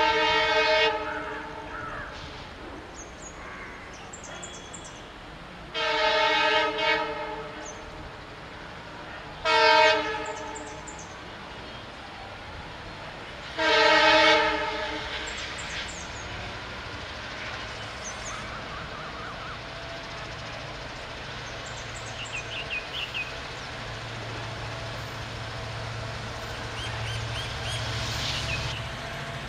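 Indian Railways WDP-4-series diesel locomotive sounding its multi-tone horn four times over the first fifteen seconds, then its diesel engine's low rumble growing steadily louder as it approaches.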